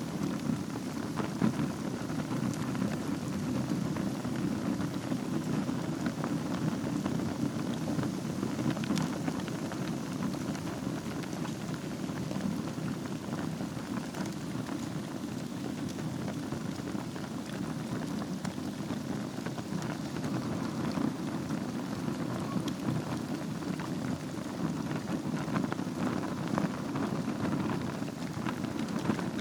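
Wood fire in a fireplace burning on a bed of embers: a steady dense crackle with scattered sharper pops.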